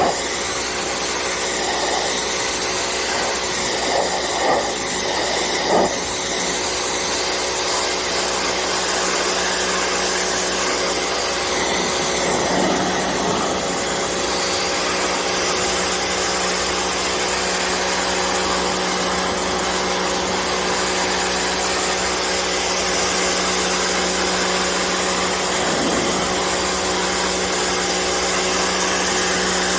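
Pressure washer running: a steady hiss of the spray over the constant hum of its motor and pump, with a few light knocks in the first few seconds.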